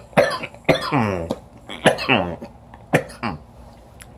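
A man coughing into his fist, a fit of about half a dozen coughs with some throat clearing, dying away in the last second.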